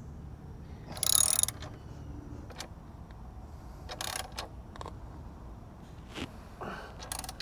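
Socket ratchet wrench clicking in short bursts on its return strokes, three times about three seconds apart, while a bolt is tightened down. The first burst is the loudest.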